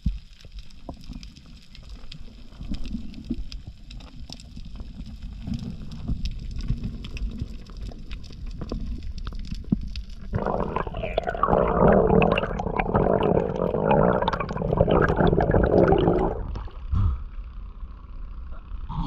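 Water noise picked up by an underwater action camera on a diver: a low rumble with scattered clicks, then about ten seconds in a loud stretch of gurgling and bubbling that lasts some six seconds and stops suddenly.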